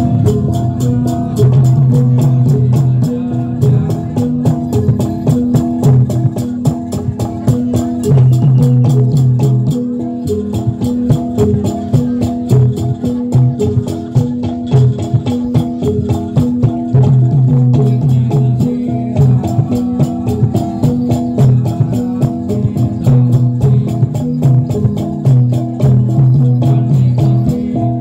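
Gamelan accompaniment for a jathilan horse dance: a repeating pitched metal-keyed melody over a strong low gong tone, driven by a fast, even clicking beat.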